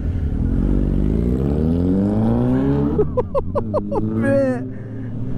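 Suzuki GSX650F inline-four on a full Delkevic de-cat exhaust accelerating away from a standstill alongside a second motorcycle. The note rises steadily for about three seconds, then drops sharply at a gear change.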